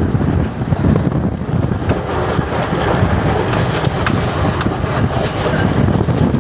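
Steady noise of a moving express train, mixed with wind buffeting the microphone; no horn sounds.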